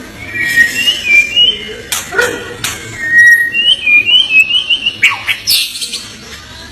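White-rumped shama (murai batu) singing: clear whistled phrases and quick warbles, mixed with several sharp clicks.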